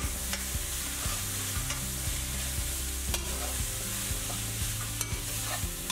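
Vegetables and garlic sizzling in oil as they are stir-fried in a stainless steel pan: a steady frying hiss, with a few clicks of the metal utensil against the pan.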